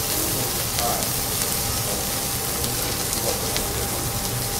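Matsusaka wagyu steak sizzling on a hot teppanyaki steel griddle: a steady frying hiss with a few small crackles.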